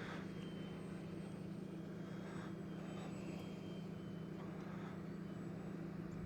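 Distant whine of a small electric RC plane's motor and propeller, a thin high tone that wavers slightly, over a steady low hum.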